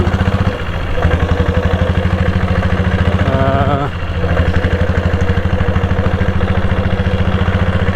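Royal Enfield Bullet single-cylinder motorcycle engine running with a steady, even thump of closely spaced firing pulses.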